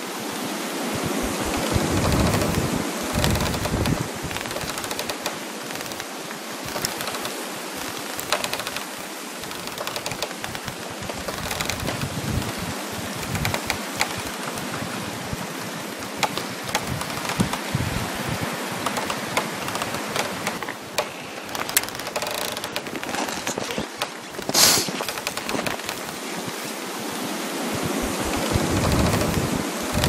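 Crackling frost: a dense, continuous crackling and snapping over the rush of wind in trees, the wind swelling near the start and again near the end. Late on there is one louder sharp crack.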